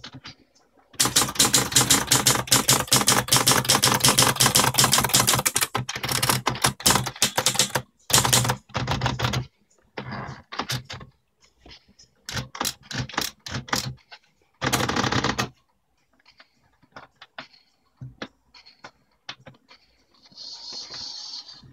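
Princess 300 typewriter being typed on: a fast, unbroken run of key strikes for about seven seconds, then shorter bursts of typing separated by pauses. About fifteen seconds in, a continuous noise lasting about a second sounds among the strikes.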